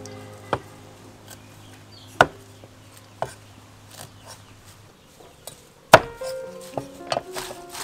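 Cleaver chopping on a wooden cutting board: single strikes a second or more apart, the one about six seconds in the loudest, then quicker, lighter chops near the end. Soft background music plays underneath.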